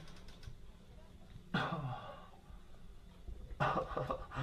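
Brief vocal sounds from a person, one about a second and a half in and more near the end, over a low steady hum.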